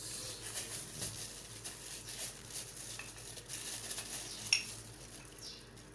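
Thin plastic bag crinkling and rustling as hands work it into a drinking glass and fold it over the rim, with one sharper click about four and a half seconds in.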